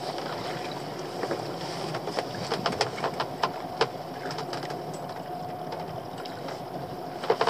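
A small outboard motor idling steadily, with irregular sharp knocks and clicks from a lobster pot and its rope being handled against the side of the open boat. The knocks come thickest about two to four seconds in.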